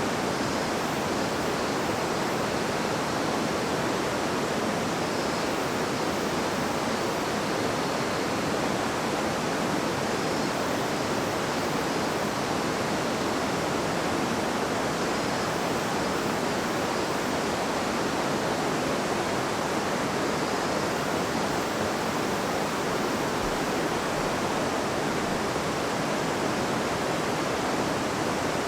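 River water flowing and babbling over stones, a steady, even rush.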